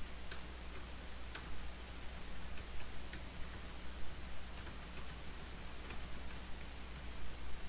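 Computer keyboard keys being typed on, a sparse, irregular run of light clicks, over a steady low electrical hum.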